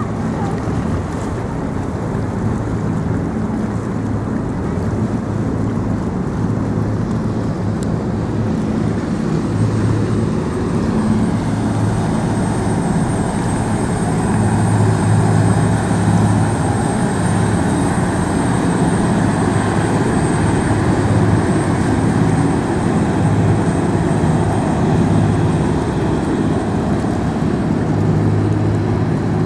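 Steady low engine drone over outdoor background noise, swelling around the middle and again near the end.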